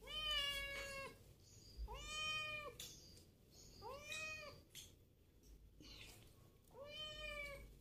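Domestic cat meowing close to the microphone, four separate meows about two seconds apart, each about a second long and rising then falling in pitch.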